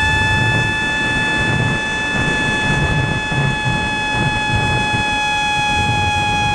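A 2205 2300 kV brushless motor spinning a 5045 propeller, making a steady high-pitched whine that sags slightly in pitch toward the end. Rough wind rumble on the plane-mounted microphone runs under it.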